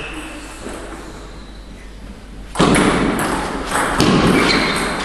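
Table tennis rally: the ball clicking off bats and table, with two loud thuds about two and a half and four seconds in, each echoing through a large hall.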